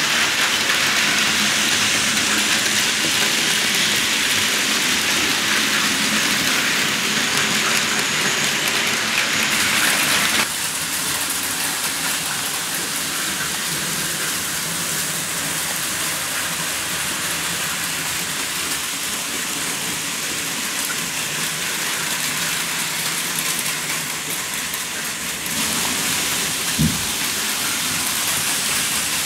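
Model trains running on a toy and N-gauge layout: a steady, even running noise from motors and wheels on track. It changes character twice, at each change of shot, and one short knock comes near the end.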